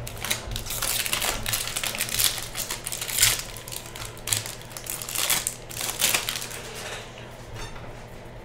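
A foil trading-card pack being crinkled and torn open, with the cards then slid and shuffled by hand: a dense run of crisp crackles and clicks that dies away about seven seconds in.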